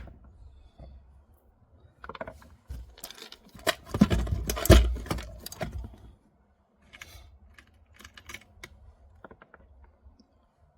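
Handling noise from rigging fishing tackle: a run of small clicks and rustles of fishing line and little plastic parts being worked by hand. It is busiest and loudest about two to six seconds in, then thins to a few scattered clicks.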